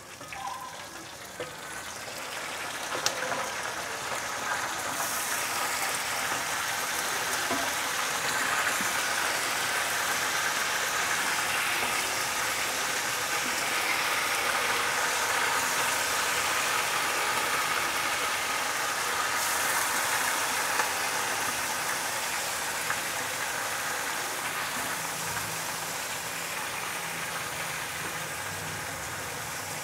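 Raw chicken pieces sizzling as they go into hot ghee and browned onions in an aluminium pot. The sizzle swells over the first few seconds as more pieces are added, then holds steady, with a sharp click about three seconds in.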